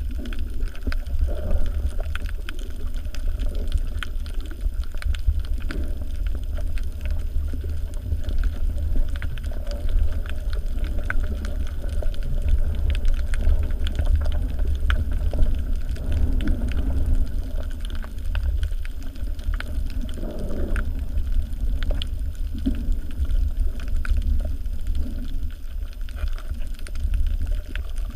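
Underwater ambience through a camera housing: a steady low rumble of water moving against the housing, with faint scattered clicks and crackles over it.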